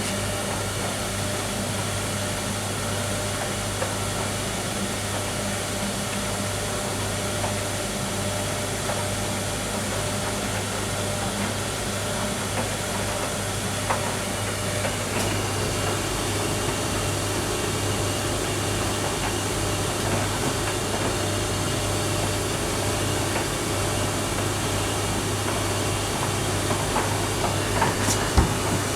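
Bosch WTN85280 condenser tumble dryer running, its drum turning a load of wet towels: a steady motor hum with a whooshing airflow hiss and faint soft knocks. The sound shifts slightly about halfway through.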